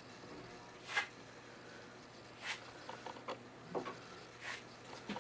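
Putty knife spreading epoxy paste over a crack in a concrete wall, a soft scrape every second or two with a few small clicks in between.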